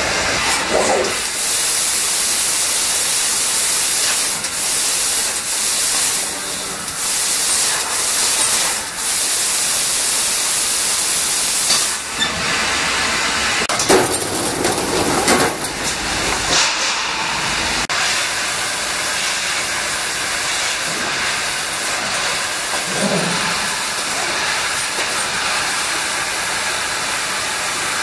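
BLM Adige CNC tube laser cutting machine running, a loud steady hiss that swells and eases, with a few short knocks about halfway through.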